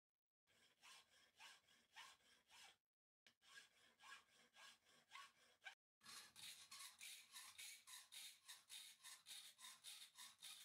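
Hand hacksaw cutting a metal piece clamped in a bench vise: rasping back-and-forth strokes in a steady rhythm. They come in three runs broken by brief silences, and the last run, from about six seconds in, is quicker.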